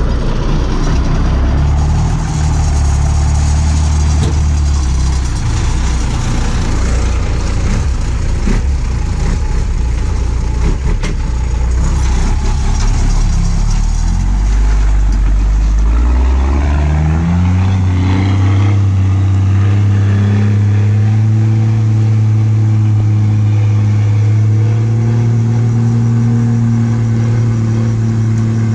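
A motor vehicle's engine running loud and close at a steady low pitch. About halfway through it revs up in a rising glide, then holds a steady higher pitch.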